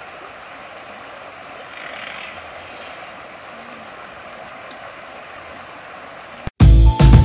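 Steady rush of a flowing river, an even hiss. It cuts off about six and a half seconds in, and loud music starts.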